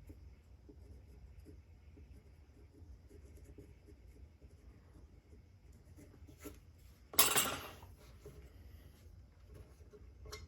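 Faint scratching of a tool incising a maker's mark into the clay bottom of a pottery piece. About seven seconds in there is one brief, much louder rush of noise.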